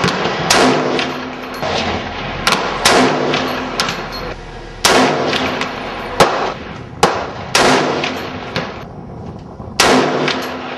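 Rifle shots from a .50 Beowulf fired through a .50 BMG muzzle brake: about five heavy shots some two to two and a half seconds apart, each trailing off over about half a second, with a few sharper, quieter cracks between them.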